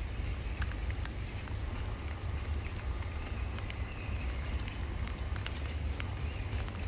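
A Vanquish VS4-10 Pro RC rock crawler creeping over wet wooden planks, with scattered small clicks and knocks from its tyres and chassis on the wood. A steady low rumble on the microphone runs underneath.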